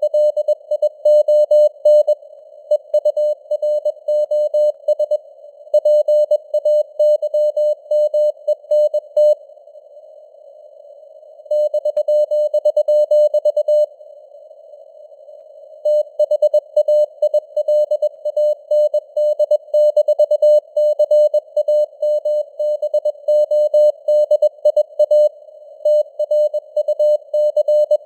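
Morse code (CW) sent as a single mid-pitched beeping tone at 21 words per minute, heard over a narrow band of simulated radio receiver hiss. The keying stops for about two seconds twice, about a third of the way through and again about halfway.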